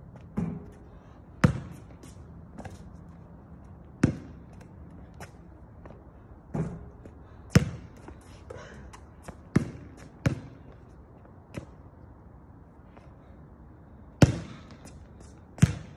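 Basketball bouncing on an outdoor hard court: about a dozen sharp thuds at uneven intervals, a few much louder than the rest.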